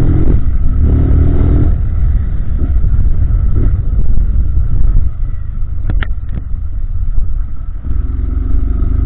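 Honda CG Titan 160 single-cylinder motorcycle engine running under way, with heavy low rumble. Its note climbs at the start, eases off through the middle and climbs again near the end, with a couple of sharp clicks a little past halfway.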